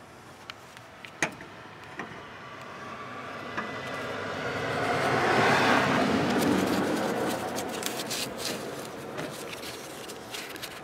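A road vehicle passing by, its noise swelling to a peak about halfway through and then slowly fading. A few sharp clicks sound in the first two seconds.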